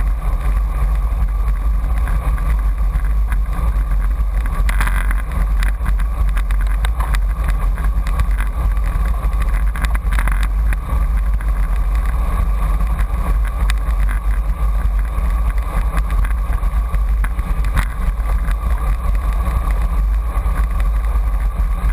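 Wind buffeting the microphone of a bike-mounted camera on a moving road bike: a loud, steady low rumble mixed with road noise, broken by a few brief knocks.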